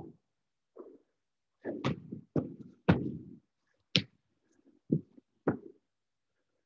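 A person doing burpees on a rubber gym floor: irregular dull thuds of hands and feet landing. About four seconds in there is one sharp clap of the hands over the head at the top of a jump.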